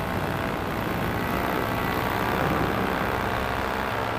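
Paramotor engine and propeller running steadily in flight, a constant drone heard close up from the pilot's harness.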